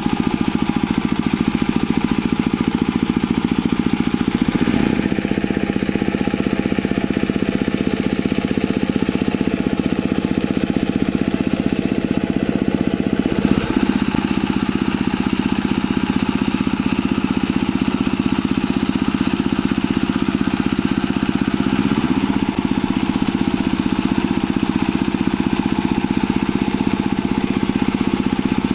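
Single-cylinder diesel engine of a walking hand tractor running steadily under load as it drives a rotary tiller through flooded paddy mud.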